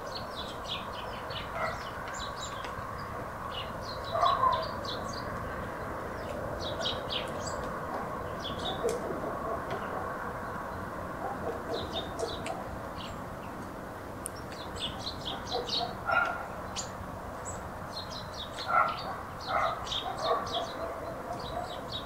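Village ambience: small birds chirp steadily in short high notes, over hens clucking, which grow louder about four seconds in and several times near the end.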